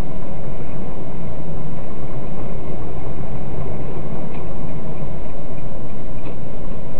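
Steady engine and road noise of a moving vehicle, heard from inside the cab through a dashcam's microphone: loud and deep-toned, with two faint ticks about four and six seconds in.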